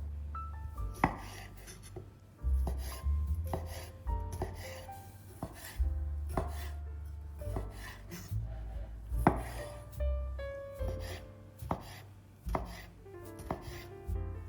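Knife chopping food on a cutting board: irregular sharp strokes a second or more apart.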